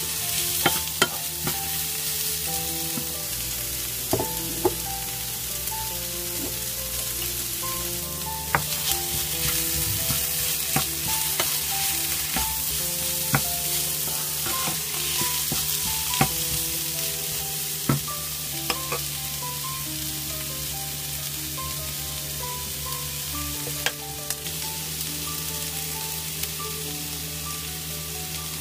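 Sliced shiitake mushrooms, onion and carrot sizzling in oil in a non-stick frying pan as a wooden spatula stirs and tosses them. The spatula makes occasional sharp taps against the pan.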